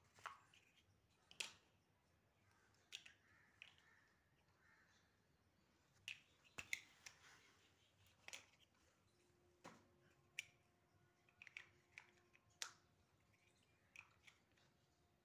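Large plastic building blocks clicking and knocking against each other as they are picked up and pressed onto a stacked tower: sharp, irregular clicks, roughly one a second.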